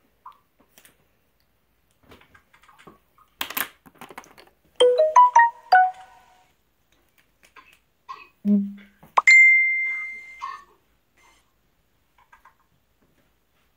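Electronic chime tones: a quick run of five or six short notes about five seconds in, then a single high beep held for about a second. A short burst of noise comes just before the notes.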